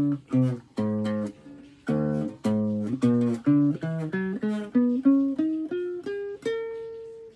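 Guitar played by hand, a string of plucked notes and strummed chords; towards the end the notes climb in pitch one after another to a final note left ringing.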